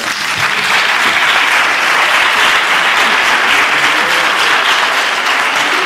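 Audience applauding steadily, a dense sustained clapping at the close of a panel discussion's thanks.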